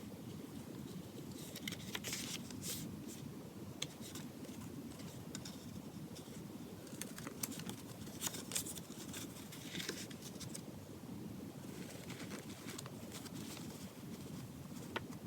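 Handling noise from unboxing a small leather notebook: three spells of crisp rustling with light clicks and taps, over a steady low background hum.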